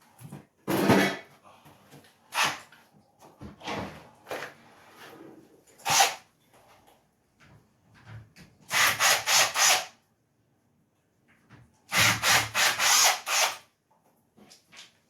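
Hand tools working on a wooden door to take out an old deadbolt: scattered knocks and scrapes, then two quick runs of about five sharp strokes each, one near the middle and one near the end.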